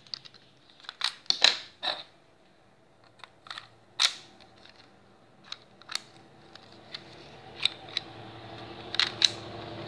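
Lego pistol model being handled: a series of sharp plastic clicks and knocks as the brick-built magazine is taken out of and pushed back into the grip.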